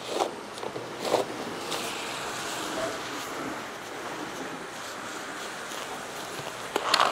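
A skillet of chicken and rice reducing on the burner with a steady sizzle, and crinkling rustles of disposable plastic gloves being pulled from the box and put on, about a second in and again near the end.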